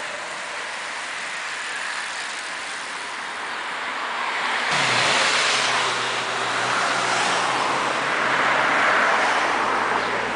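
Cars driving past on a wet road, a steady engine hum with tyre noise that swells as they pass. It comes in abruptly about halfway through, after a stretch of plain steady street noise.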